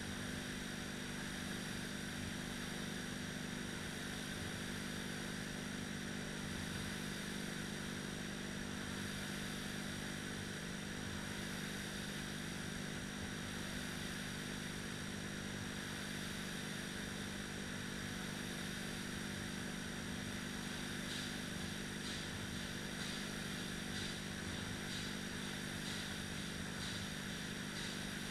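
Two fan-flywheel rowing machines being rowed hard: a steady whirring rush of air with a constant hum. Faint regular ticking comes in during the last several seconds.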